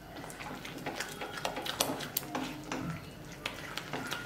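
A silicone spatula stirring wet semolina upma with green peas in a nonstick kadai: irregular scrapes and soft taps against the pan, with a wet squelch of the thickening semolina as it soaks up the water.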